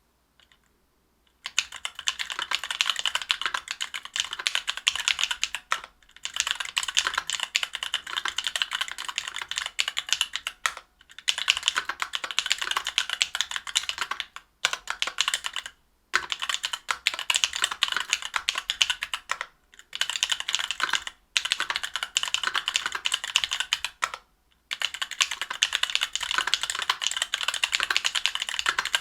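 Continuous typing on a custom mechanical keyboard with stock Alphakeys Blue Dusk Panda linear switches (62g), an aluminium plate and GMK keycaps: a rapid patter of keystrokes. It starts about a second and a half in, in runs of a few seconds broken by short pauses.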